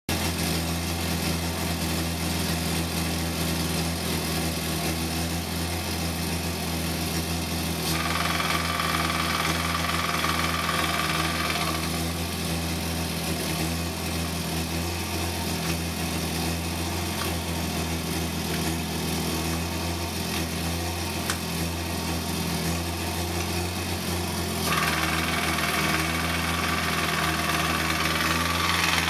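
1972 Triumph GT6 Mk3's straight-six engine idling steadily, heard from over the gearbox, which is making a noise the owner cannot identify. A higher whirring sound comes in about eight seconds in, stops some four seconds later, and returns near the end.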